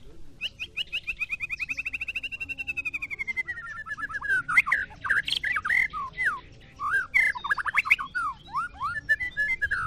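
White-rumped shama (murai batu) singing: a fast trill of about ten notes a second, drifting slowly down in pitch for about three seconds, then a run of loud, varied whistled slurs and phrases.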